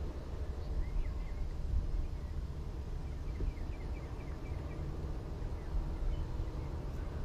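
Wind rumbling on the microphone over open water. About three seconds in, a bird gives a quick run of about eight short, high chirps.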